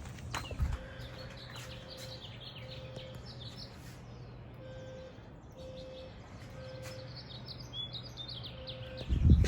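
Birds chirping in short, high calls, over a steady low hum and a faint low beep that repeats about once a second. A loud thump comes near the end.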